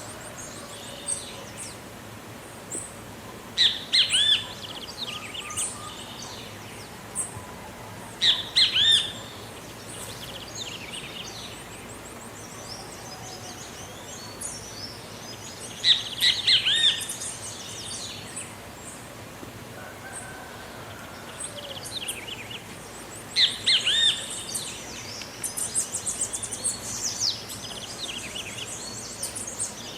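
Great kiskadee calling: four loud bouts of ringing, arched notes a few seconds apart, over thinner high chirps from other birds and a steady outdoor background hiss.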